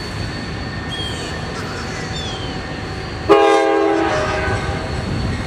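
Approaching diesel freight locomotive sounding its air horn: one short blast that starts suddenly about three seconds in and dies away within about a second.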